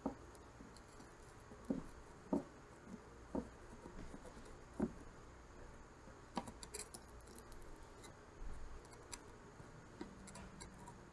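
Faint, scattered ticks and clicks of metal tweezers and a soldering iron working a motor wire onto a drone flight controller's solder pad, several single ticks a second or two apart.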